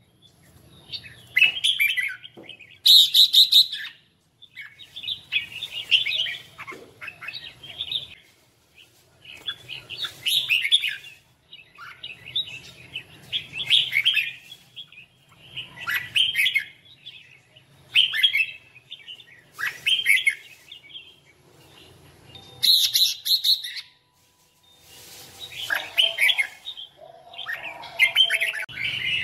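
Red-whiskered bulbul singing its competitive song: short, loud warbling phrases about every two seconds, with two harsher, louder bursts, one a few seconds in and one near the end.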